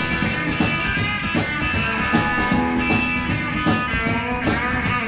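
Live rock band playing an instrumental passage between chorus and verse, with guitar over bass and a steady drum beat.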